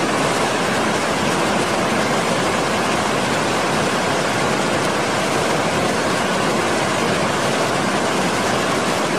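Whitewater rapids and a waterfall rushing, a steady, unbroken roar of water that starts and stops abruptly with the clip.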